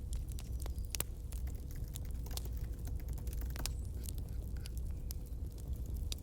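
Campfire crackling: irregular sharp pops and snaps over a low steady rumble of the burning fire, with one louder pop about a second in.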